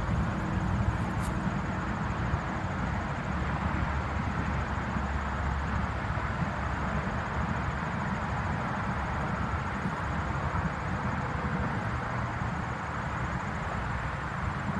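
Steady outdoor ambient noise: a low, fluctuating rumble under an even hiss, with no distinct events.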